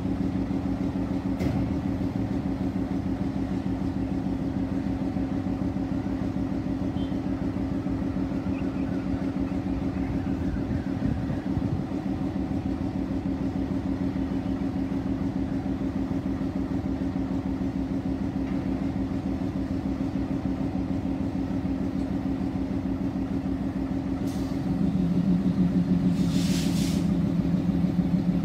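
Diesel engine of a Sri Lanka Railways Class M10A locomotive idling with a steady low drone. Near the end the engine note gets louder and a short hiss sounds.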